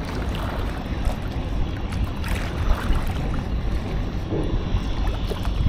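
Steady wind noise on the microphone, heaviest in the low end, over the wash of sea water.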